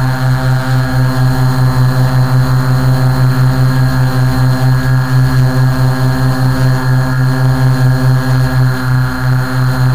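Quadcopter's electric motors and propellers humming steadily, recorded close by the onboard camera, with a pulsing beat about four or five times a second.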